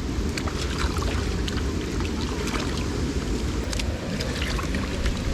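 Steady rushing of flowing stream water, with a low rumble and scattered small clicks and splashes.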